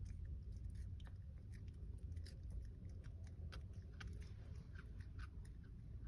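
A Chihuahua's mouth making many small wet clicks and smacks as it licks its lips and swallows, typical of a nauseous dog with a watering mouth. A steady low rumble runs underneath.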